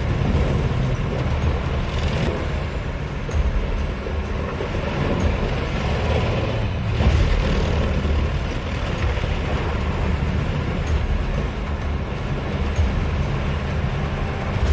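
Heavy machinery running steadily: a low engine rumble under a constant mechanical noise, with no clear breaks.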